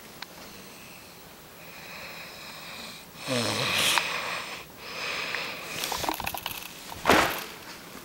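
Loud snoring. Wheezy breaths build to a loud snore about three seconds in whose pitch drops as it goes, and a short sharp snort just after seven seconds.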